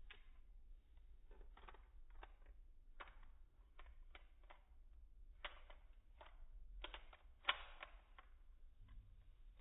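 Near silence: faint, irregular clicks over a low hum, with one sharper click about seven and a half seconds in.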